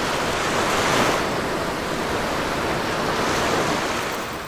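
A steady rushing noise, an added transition sound effect, that swells up about a second in, holds and fades away near the end.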